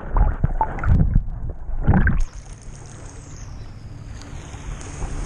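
Muffled underwater sloshing and low thumps of water moving around a submerged camera. About two seconds in, the camera breaks the surface and the sound opens abruptly into a steady hiss of wind and lapping water.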